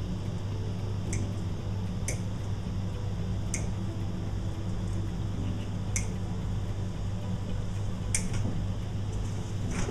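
About six short, sharp clicks and snips, spread unevenly, from flower stems and dried material being cut and handled at the arrangement, the last two the loudest, over a steady low hum.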